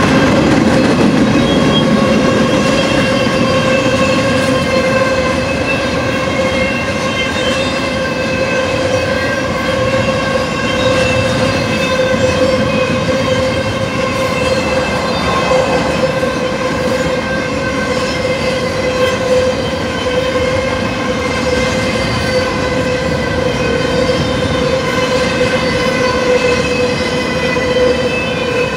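Loaded double-stack intermodal well cars of a BNSF freight train rolling past: a steady rumble and rattle of steel wheels on rail. Over it sits a steady ringing tone with its overtones, held the whole time. The rumble is a little heavier in the first few seconds.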